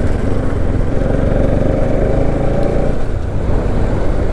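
Motorcycle engine running while riding along a road, with heavy low rumble from wind and road noise; a steady tone rises above it for a couple of seconds in the middle.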